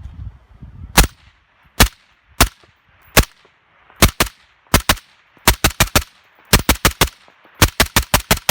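Desert Tech MDR bullpup rifle in 5.56 NATO firing semi-auto: single shots about a second apart at first, then doubles, then fast strings of shots, quickest near the end.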